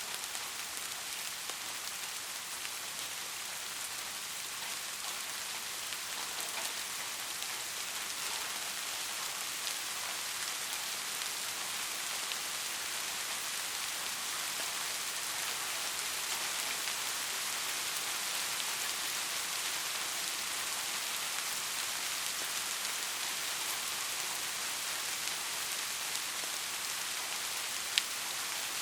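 Soft rain falling steadily in a continuous patter, with a single sharp click just before the end.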